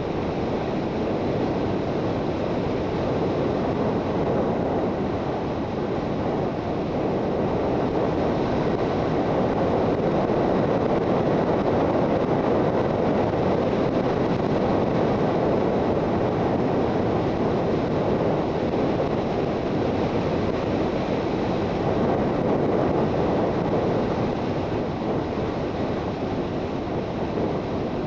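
Onboard riding noise from a Suzuki GSX650F motorcycle at speed: a steady rush of wind over the microphone, swelling slightly louder in the middle.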